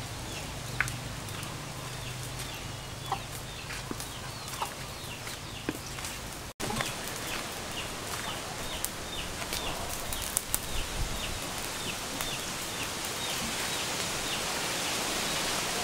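Chickens calling in quick runs of short, high, evenly repeated notes, with scattered light taps.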